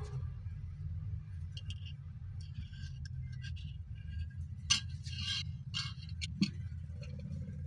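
Light clicks and short scrapes of a thin steel rod being handled and slid through a metal eye bolt on a wooden sharpening jig, the sharpest a little before halfway and near the end, over a steady low hum.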